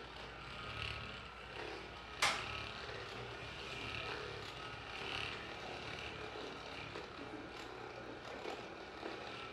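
Handheld electric massager running against the muscles of the lower back, a steady low motor hum. A sharp click about two seconds in.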